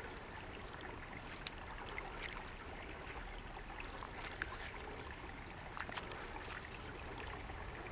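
Faint, steady trickle of shallow water around a T-shirt net held down in a sandy pool, with a few soft ticks.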